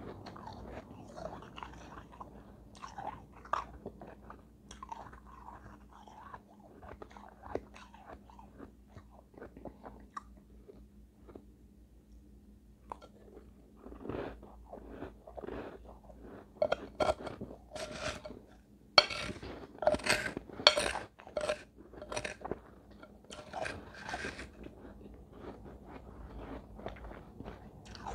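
Close-up chewing and crunching of mouthfuls of shaved ice: soft crackles at first, then a run of loud, sharp crunches through the second half.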